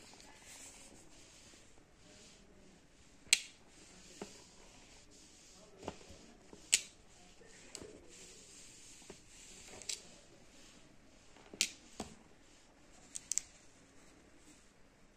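Small steel screws clicking sharply onto a copper coin as it is held near them and they jump to it: about five loud clicks and several fainter ones, spaced a second or more apart.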